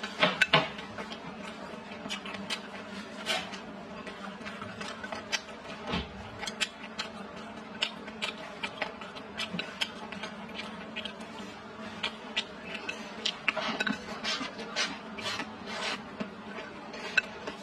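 Eating sounds: chewing with the mouth closed and chopsticks clicking and scraping in a bowl, heard as many short, irregular clicks over a steady low hum.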